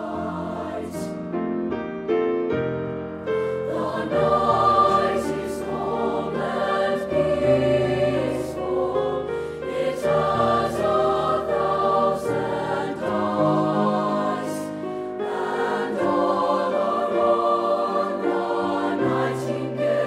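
Middle-school mixed choir singing a choral piece in parts, the voices swelling and easing phrase by phrase.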